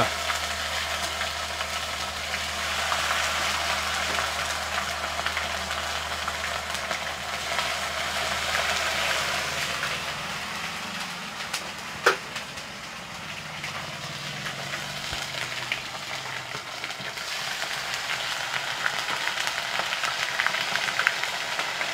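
Fish pieces deep-frying in hot oil in an aluminium pan, a steady sizzle, with one sharp knock about twelve seconds in.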